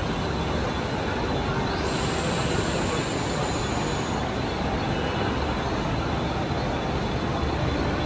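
Steady, noisy din of a railway station platform beside standing electric local trains. A faint high whine comes in about two seconds in and fades out about two seconds later.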